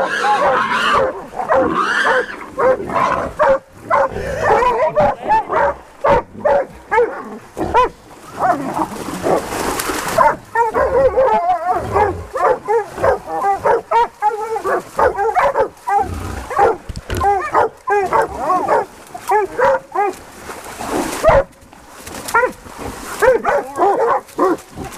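Hog-hunting hounds barking and bawling in rapid, continuous succession.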